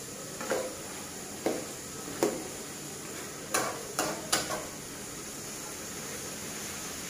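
Metal spatula scraping and knocking against a kadai as chicken and potato curry is stirred while frying, about six strokes in the first four and a half seconds, over a steady sizzle.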